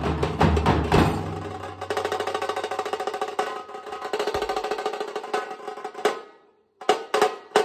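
Nasik dhol-tasha drumming: large dhols and sticks beating a fast rhythm. The deep dhol beats drop out about a second in, leaving a rapid roll of lighter strokes. It fades and stops briefly near the end, then a few single strokes come in as the beat restarts.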